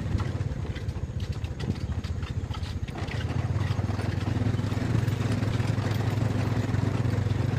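Small motorcycle engine running steadily while the bike is ridden, a low drone heard from the rider's seat that gets a little louder about three seconds in.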